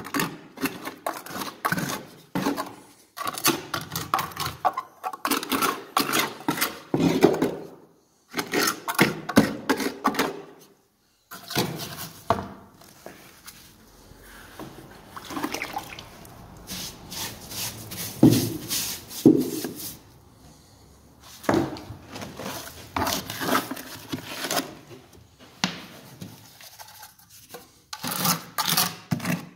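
A trowel scraping and pressing stiff wet concrete into small gaps, in repeated bursts of scrapes and knocks, mixed with cloth rubbing on the phone's microphone.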